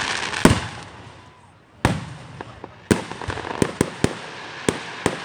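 Aerial fireworks going off: three heavy bangs about a second apart, then a quicker run of sharper crackling pops.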